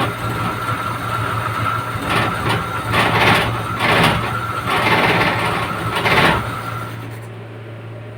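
Suzuki F6A three-cylinder engine running, with several brief louder rises about 2, 3, 4 and 5–6 seconds in, then settling quieter near the end. It is a freshly overhauled engine that starts hard, and its ignition timing is being checked.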